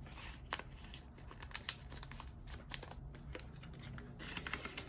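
Canadian polymer banknotes being folded and handled, with faint crinkling and scattered light ticks as they are slipped into a clear plastic binder envelope.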